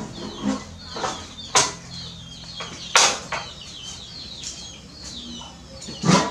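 Small birds chirping on and off, with a few sharp knocks and clinks. The loudest knock comes near the end, as the lid of the aluminium stockpot is handled.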